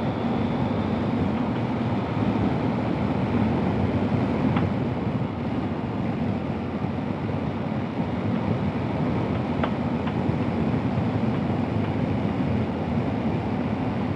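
Motorcycle riding at road speed: a steady low engine drone under continuous wind rush on the microphone, with a few faint clicks.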